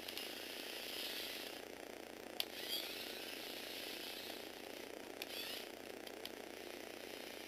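Small electric gearbox motor whirring as it drives a Lego Technic tricycle, its plastic gears running steadily, with a sharp click about two and a half seconds in and a couple of short squeaks.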